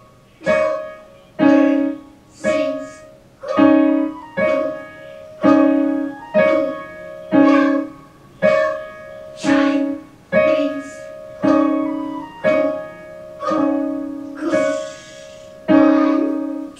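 A grand piano played by a beginner: slow, evenly spaced notes about one a second, each struck and left to ring and fade, moving between a higher and a lower note in a simple repeating pattern.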